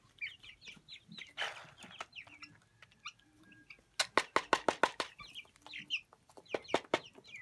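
Young broiler chicks peeping, with short, falling cheeps throughout. About four seconds in comes a quick run of sharp taps as a plastic scoop is knocked against a bowl of feed pellets to shake off a moist feed mix.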